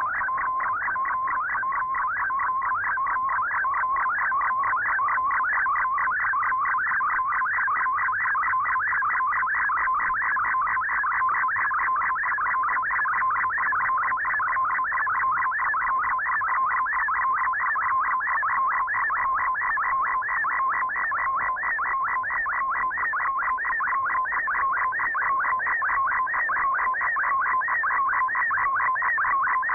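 Shortwave digital-mode data signal heard through the receiver's audio: an MFSK picture transmission, a fast warbling pattern of repeating tones, about four strokes a second, over a steady tone.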